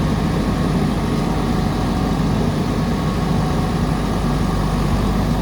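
JCB backhoe loader's diesel engine running steadily at an even pitch.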